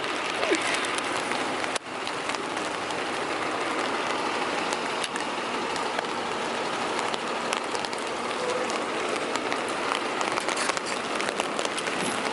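Heavy rain in a downpour: a steady, dense hiss of falling drops.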